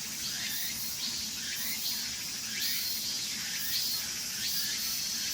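Cicadas droning, a steady high buzz pulsing about twice a second, with a short sweeping call repeating roughly once a second.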